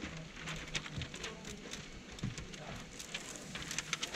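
Window-tint film crackling and crinkling as hands press and smooth it against the inside of a windshield: many small irregular clicks and rustles over a faint low hum.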